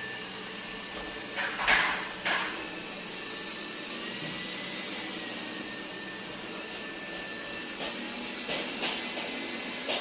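Dreame D9 robot vacuum running on carpet: a steady suction whine with brushes turning, with a few short, louder bursts about one and a half to two and a half seconds in and again near the end.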